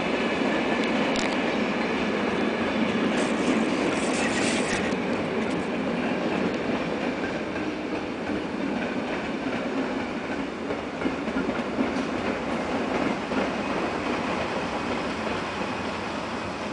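Passenger train coaches rolling past over station pointwork: a steady wheel-on-rail rumble with clacks as the wheels cross rail joints and switches, and a faint wheel squeal in the first few seconds.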